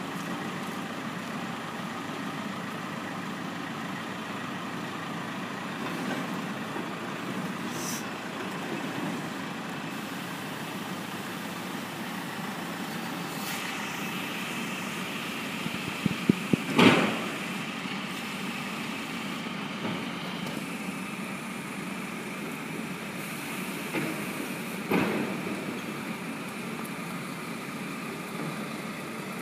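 JCB Loadall telehandler's diesel engine running steadily as the machine drives down off a low-loader trailer. There is a loud metallic clank about halfway through, just after a few sharp clicks, and a smaller thump later on.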